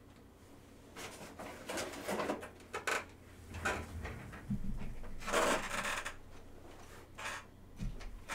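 Irregular rustling and scraping handling noises, a string of short scrapes with a longer, louder one about five seconds in, and a dull low thump near the end.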